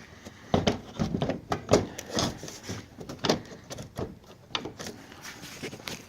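Audi B8 A4 plastic headlight assembly being slid back into its mounting in the car's front end: a run of irregular knocks, clicks and scrapes as the housing is worked into place.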